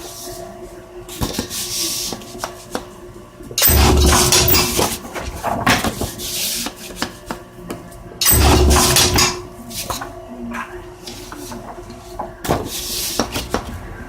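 Paper corner-cutting machine trimming the corners of wrapping paper: a loud clattering cut cycle about a second long, twice, roughly four and a half seconds apart, with a low rumble under each and quieter clatter in between.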